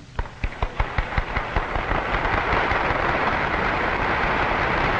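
Audience applauding: a few scattered claps that swell into dense, steady applause within about two seconds.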